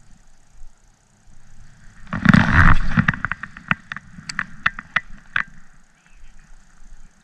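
Handling of a baitcasting rod and reel on a kayak: a brief loud rush of noise about two seconds in, then a few seconds of scattered sharp clicks and ticks.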